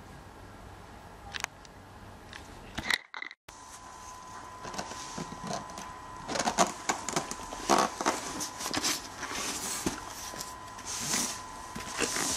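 Hands handling a cardboard box: scattered rustles, scrapes and light knocks, busier in the second half.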